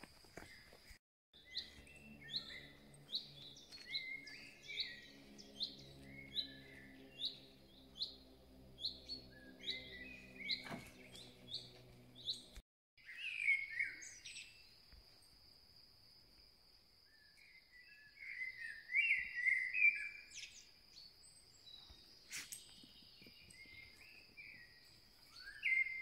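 Woodland songbirds singing: short notes repeated about twice a second, then after a break a more varied warbling song. A faint low hum runs under the first half.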